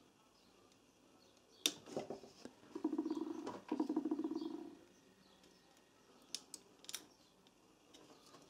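Quiet handling clicks and a rasping creak in two stretches of about a second each, as insulated spade connectors are wiggled and pulled off the tabs of a MIG welder's control circuit board.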